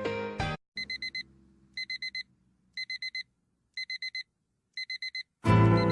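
Digital alarm clock beeping in quick bursts of four high beeps, one burst a second, five bursts in all. Music breaks off just before the beeping, and loud music with a heavy bass comes in near the end.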